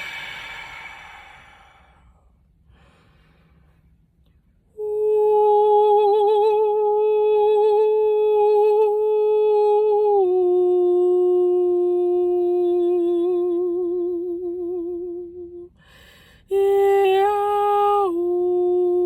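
A slow exhale through the mouth, then a woman's voice humming long held notes with a slight waver. She sings two phrases, each stepping down to a lower note partway through, with a brief breath between them.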